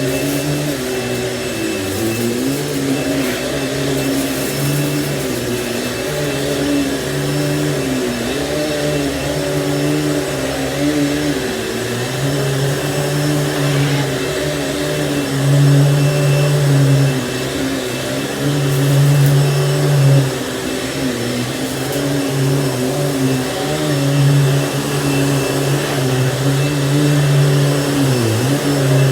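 Panasonic upright vacuum cleaner running steadily, its motor hum wavering slightly in pitch, with a few brief swells in loudness.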